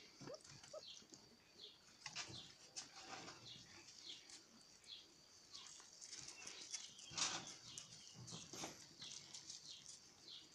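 Faint, irregular clicking and scuffling from a litter of puppies jostling and eating from food bowls on gravelly dirt.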